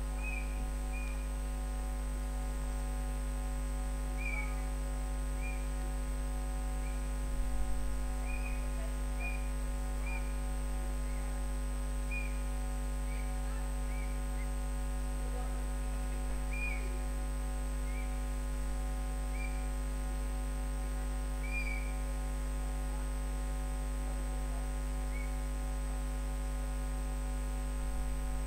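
Steady low electrical hum with several constant tones, over which faint short high chirps come every second or so, bird-like. A brief louder blip about seven seconds in.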